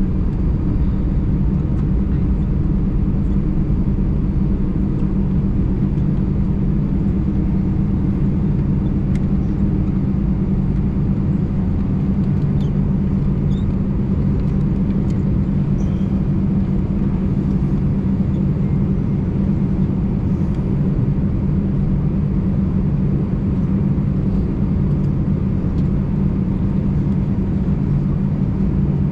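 Airbus A320 cabin noise as the airliner taxis: a steady low rumble of the engines near idle and the airframe, with a low hum through it. A higher hum fades out about ten seconds in, and a few faint ticks come in the middle.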